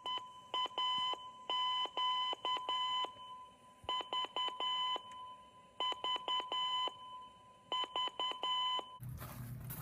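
Morse code keyed as short and long beeps of a steady, buzzy tone, sent in four groups with short pauses between them. Near the end the beeping stops and a low hum with hiss takes over.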